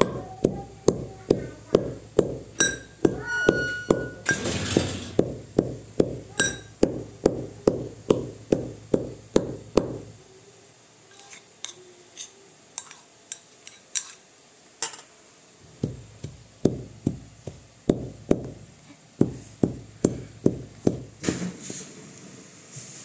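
Brass pestle pounding walnuts in a brass mortar, about three strokes a second, each with a metallic clink and a short ring. The pounding eases off for several seconds past the middle, then picks up again.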